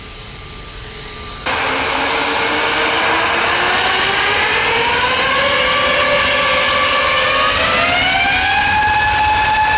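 Jet airliner engines spooling up: a loud rush with a multi-tone whine that climbs steadily in pitch for several seconds and then holds steady, as when thrust is set for takeoff. It is preceded by a quieter steady engine hum that cuts off abruptly about a second and a half in.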